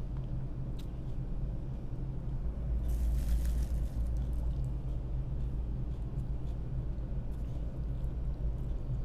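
Diesel engines of an ASD tug running steadily under load, a low rumble. A brief hiss comes about three seconds in.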